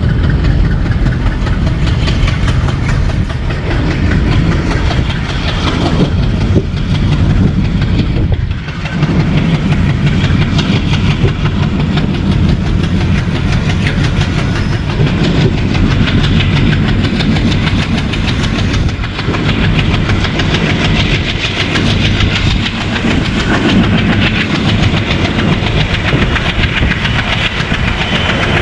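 ALCO diesel locomotive with a 16-cylinder ALCO 251 engine, chugging steadily as it pulls the train under power, heard from an open coach window. Its wheels clatter over the rails alongside.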